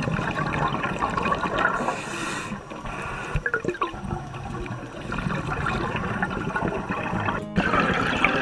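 Underwater bubbling and gurgling water noise, recorded with the microphone under the sea.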